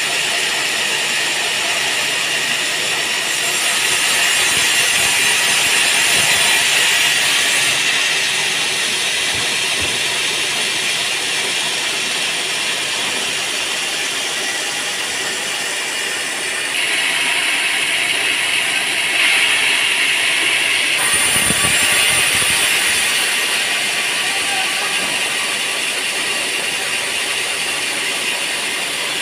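Sawmill band saw running and cutting teak wood: a loud, steady machine noise with a hissing edge that grows louder and brighter twice, a few seconds in and again past the middle.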